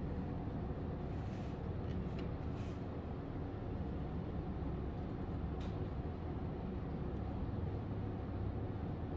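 Steady low hum of background noise, with a few faint brief rustles at about one and a half, two and a half and five and a half seconds in.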